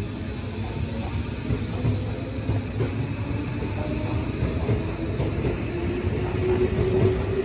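Tobu Skytree Line electric commuter train departing: the motor whine rises steadily in pitch as it picks up speed, over the rumble of wheels on the track, getting louder toward the end.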